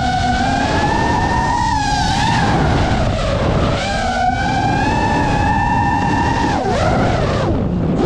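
FPV quadcopter's brushless motors whining, the pitch wavering up and down with the throttle. Near the end the pitch falls steeply as the throttle is cut, then starts climbing again.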